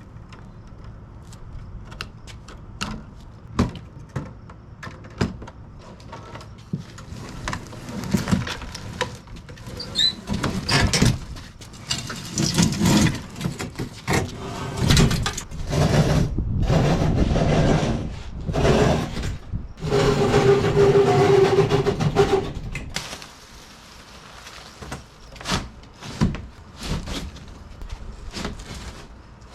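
Packaging being pulled off a crated dirt bike: cardboard and plastic rustling and scraping, with many knocks and clicks. The handling is busiest in the middle, with a brief squeaky tone about twenty seconds in, then settles to scattered knocks.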